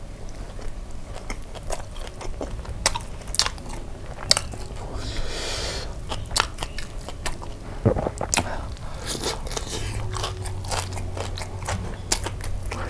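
Crispy fried chicken in kimchi sauce being torn apart by gloved hands and chewed close to the microphone, with irregular sharp crunches of the fried coating.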